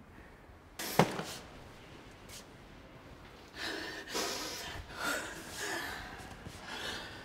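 A woman sobbing in uneven, gasping breaths with short broken cries, starting about three and a half seconds in. Before that, about a second in, comes one sharp sudden sound whose pitch falls quickly.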